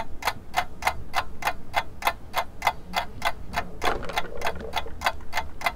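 Clock ticking sound effect for a countdown timer: steady, sharp ticks at about four a second.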